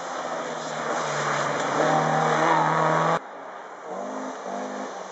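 Rally car engine at full throttle going past, its note shifting with gear changes. About three seconds in it cuts off abruptly to a quieter second rally car approaching, its revs stepping up and down between shifts.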